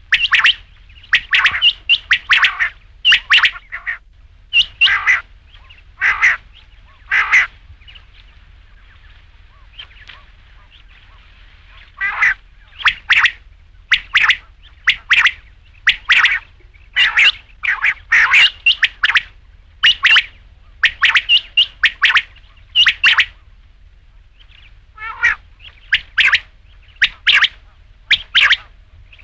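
Quail calling: short, sharp notes repeated in quick groups of two or three, with a pause of about four seconds a third of the way in.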